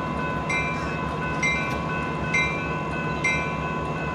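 Diesel locomotive idling with a low, pulsing hum while a bell rings about once a second.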